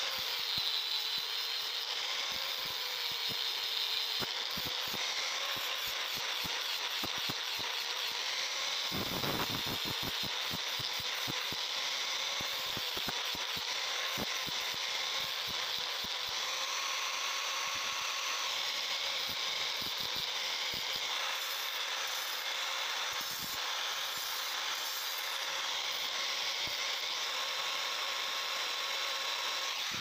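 A power tool running steadily, with many small clicks and rattles through it.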